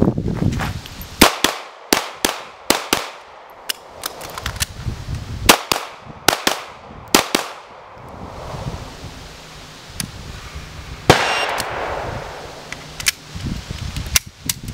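Sig P226 9mm pistol fired in quick pairs at steel targets, about a dozen sharp shots with a short pause partway through, typical of a mid-string reload. A few more shots follow near the end.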